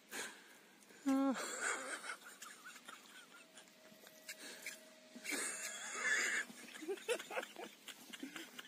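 A person laughing hard and wheezing in breathless bursts, the loudest starting about a second in.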